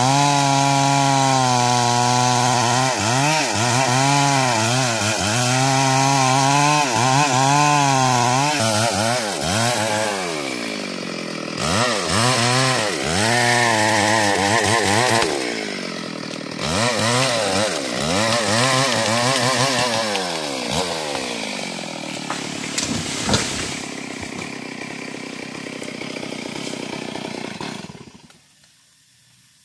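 Stihl MS 382 two-stroke chainsaw cutting a mahogany trunk at full throttle, its engine pitch dipping and recovering again and again as the chain loads up in the cut. After about nine seconds it is throttled up and down in surges, with a single sharp crack about two-thirds through, and the engine cuts off near the end.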